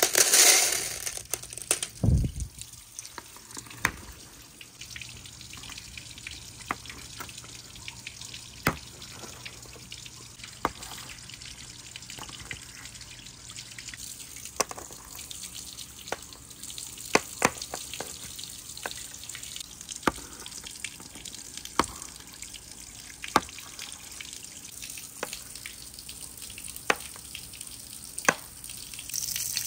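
Marbles clicking and knocking along a wooden marble run: irregular sharp clicks, about one every second or two, over a steady low hum. A rush of noise comes in the first second, then a dull thud about two seconds in.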